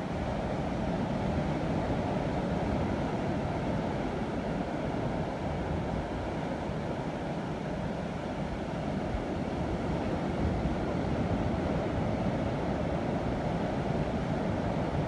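Steady rush of sea surf washing against rocks, with wind rumbling on the microphone.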